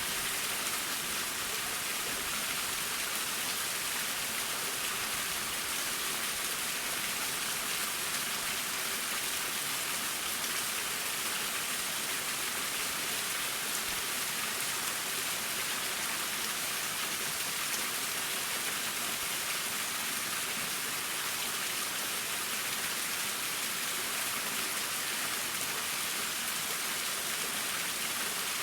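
Waterfall splashing down: a steady, even hiss of falling water that does not change.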